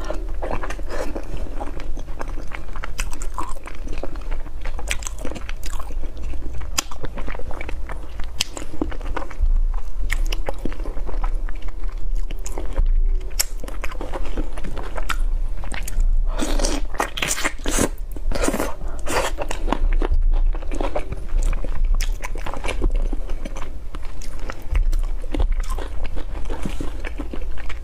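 Mouth sounds of a person biting and chewing spicy braised chicken feet: a dense, continuous run of small clicks and crackles as the skin is eaten off the bones.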